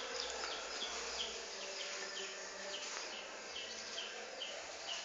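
Faint, even series of short, high, falling chirps, about two to three a second, from an unseen small creature, over a low room hum.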